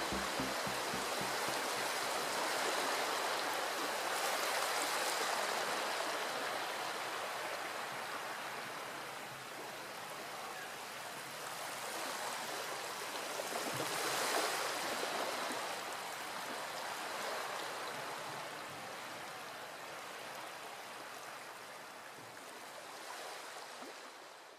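Sea water washing on the shore: a steady rush of water that swells and eases every few seconds, strongest about fourteen seconds in, and fades away near the end.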